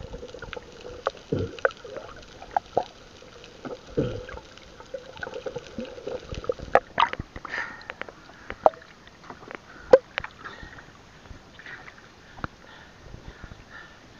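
Water sloshing and splashing around a small fishing boat, with scattered knocks and thumps, and a faint steady hum during the first half.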